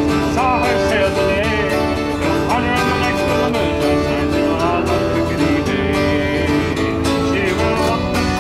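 Folk music with a fiddle playing the tune over a strummed acoustic guitar, in a country-bluegrass style.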